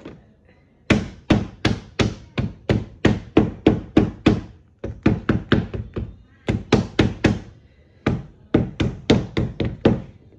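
Claw hammer striking a sandal's footbed over and over, about three blows a second in four runs with short breaks. The blows drive a freshly glued new rubber sole onto the sandal, which rests on wooden decking.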